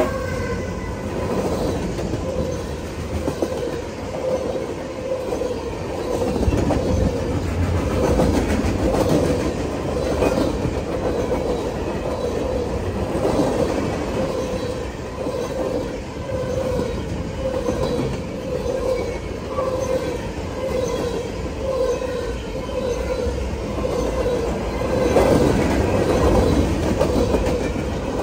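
A train's cars rolling steadily past close by, a continuous rumble of wheels on the rails with a clatter that swells and fades about once a second.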